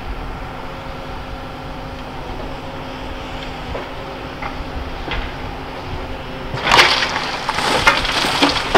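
Tracked demolition excavator's engine running steadily. About two-thirds of the way in come loud crunching and cracking as its demolition grab tears and crushes building debris.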